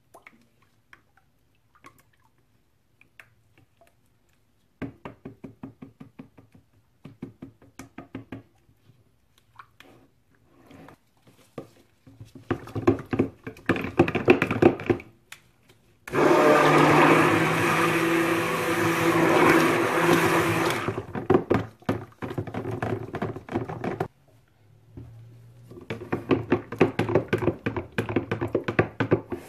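Stick blender whirring in a plastic pitcher of soap-making oils, blending moringa powder and kaolin clay into them before the lye goes in. It runs in short bursts, then is held on steadily for about five seconds near the middle.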